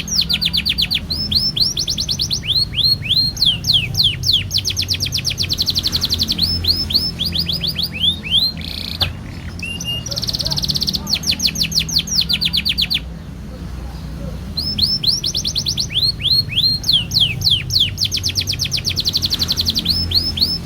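Domestic canary singing long rolls: rapid trills of fast repeated notes alternating with quick falling whistled notes, with short breaks about nine and about thirteen seconds in. A steady low hum runs underneath.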